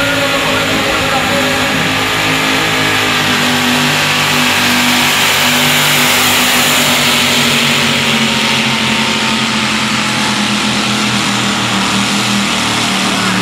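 Competition pulling tractor's engine running, a loud steady drone with a rushing hiss that swells around the middle.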